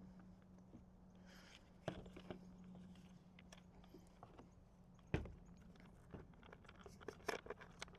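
Faint hand-handling of a plastic e-bike battery enclosure being pried open: scattered small clicks and scrapes, with one sharper knock a little after five seconds. A low steady hum sits underneath.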